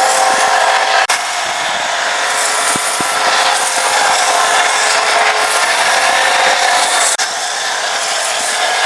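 Pressure washer spraying: a steady, loud hiss of the water jet over the hum of the pump. It breaks off for an instant twice.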